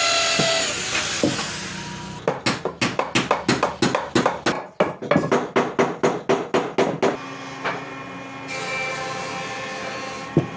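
A power tool's whine dies away in the first second, then a quick run of hammer blows, about four a second for some five seconds. A steady hum and one sharp knock follow near the end.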